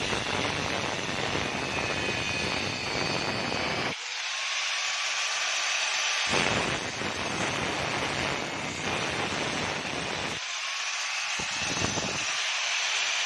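Angle grinder with a thin cut-off disc cutting through the copper windings of an A/C compressor motor's stator: a steady rasping hiss with a faint high whine.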